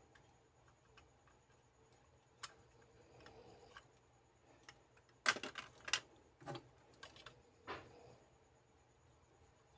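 Hard plastic Kyutama toy capsules being handled: a single click, then about halfway through a quick cluster of sharp clicks and rattles, followed by a few more clicks.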